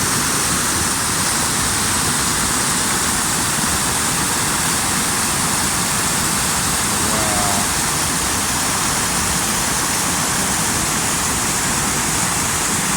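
Waterfall on a mountain creek: a steady, loud rush of falling water.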